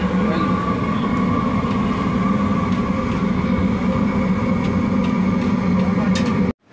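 A steady mechanical drone: a strong low hum with several held higher tones over a rushing noise, cutting off abruptly near the end.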